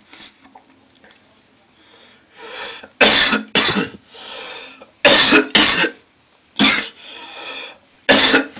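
A man retching and coughing over a toilet while vomiting: about seven harsh, abrupt bursts, mostly in pairs, starting about three seconds in, with rasping breaths drawn between them.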